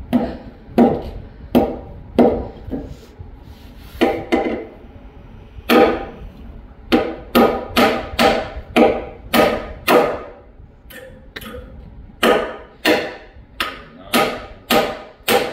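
Hammer driving nails into a reclaimed-wood bench top: about twenty sharp blows at roughly two a second, each ringing briefly, with two short pauses between runs of strikes.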